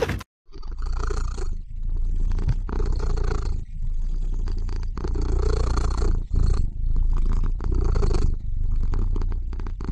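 Grey cat purring, a low rumble in long breaths of a second or so each with short breaks between them, starting about half a second in.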